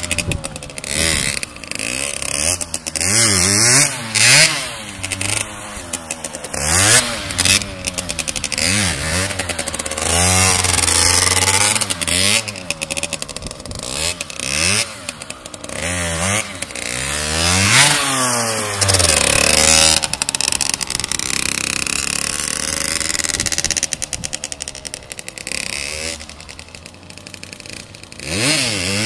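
Sport motorcycle engine revved hard and let fall again and again as the rider holds wheelies, the pitch rising and falling with each twist of the throttle. Near the end it drops to a quieter, steadier note as the bike rides off.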